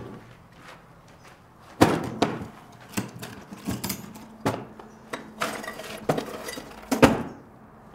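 Black plastic toolbox being set down on the floor, its latches and lid worked open: a series of hard plastic clunks and rattles, the loudest knock about seven seconds in.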